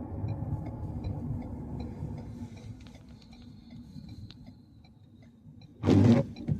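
A car's turn signal clicking steadily about twice a second over low engine and road rumble that fades away. Near the end comes one loud, short burst of noise.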